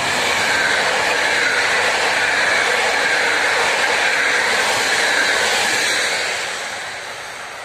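Passenger coaches of an electric-hauled express train rolling past at speed: a loud, steady rush of wheels on rail that begins to fade about six seconds in as the last coach goes by.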